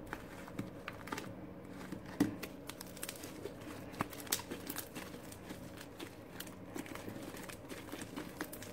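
Fluffy slime with small raindrop beads mixed in, kneaded by hand in a plastic tub: soft, irregular crackling with scattered small clicks and pops.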